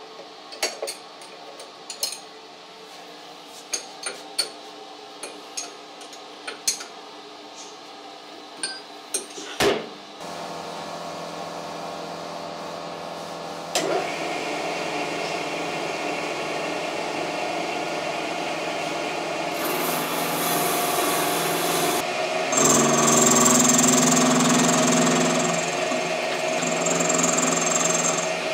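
Metal tools clinking and knocking as they are handled, then a metal lathe starting up and running steadily, growing louder about four seconds later. Near the end the lathe's cutting tool bites into a steel bar with a harsh, hissing cutting noise and a thin high squeal.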